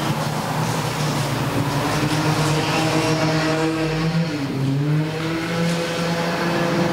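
A motor vehicle's engine running steadily, its pitch dipping briefly about four seconds in and then coming back up.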